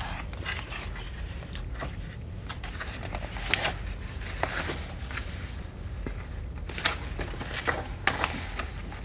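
Paper pages of a picture book being handled and turned: scattered crackles and light taps over a steady low hum.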